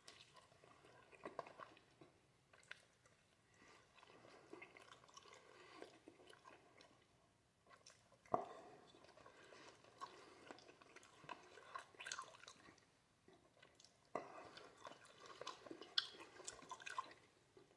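Faint, wet chewing and mouth smacks of someone eating slices of processed American cheese fast, with irregular sharp clicks.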